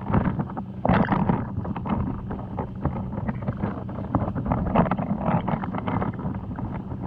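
Water noise heard through an underwater camera: a steady low hum under constant crackling, with a louder rush of noise about a second in.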